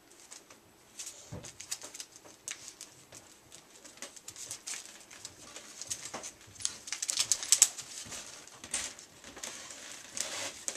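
Cardboard and plastic packaging being handled and unpacked by hand: rustling and crinkling with scattered clicks and taps, busiest about seven to eight seconds in.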